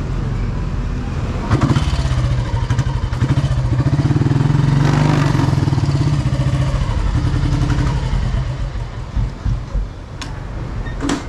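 Royal Enfield Bullet Standard 500's single-cylinder engine running, louder from about a second and a half in, then easing off about eight seconds in. Two sharp clicks near the end.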